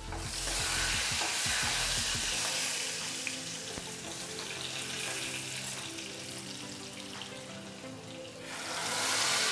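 Tadka of crushed garlic, cumin, curry leaves and asafoetida sizzling in hot oil in a small pan: a steady frying hiss, louder at the start and again near the end.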